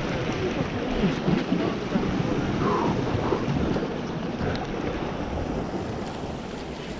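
Wind buffeting the microphone over sea waves washing against shoreline rocks, a steady rushing noise.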